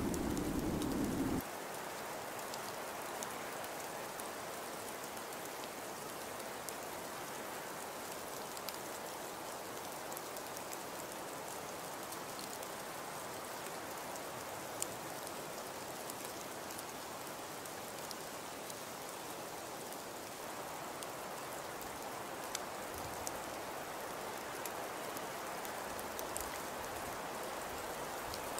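Ambient winter-storm soundscape: a steady rain-like hiss with scattered faint ticks. A louder low rumbling layer cuts off suddenly about a second in.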